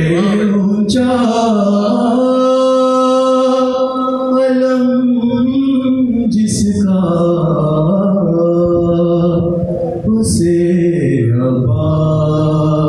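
Unaccompanied solo male voice singing Urdu devotional verse, holding long, wavering notes of a few seconds each.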